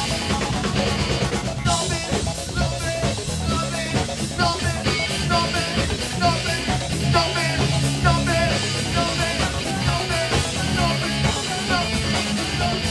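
Rock band playing an instrumental passage: drum kit and bass under a lead guitar line with bent, wavering notes.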